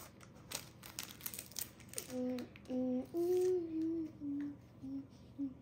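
Crinkling of a foil card pack being handled, then from about two seconds in someone hums a short tune of several held notes that step downward.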